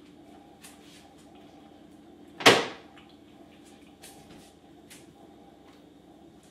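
A kitchen cupboard door banging shut once, a sharp loud bang about two and a half seconds in that dies away quickly, with a few faint clicks and knocks of things being handled around it.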